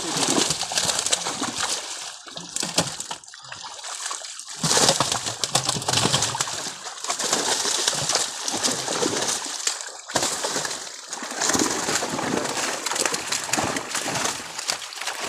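Many large fish thrashing and flapping in a seine net drawn into shallow water, sending up repeated irregular splashes as they are scooped into a sack.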